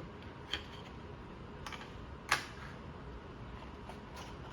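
A few light clicks and taps from a puzzle-cube box and its contents being handled, the loudest about two seconds in, over a faint steady hiss.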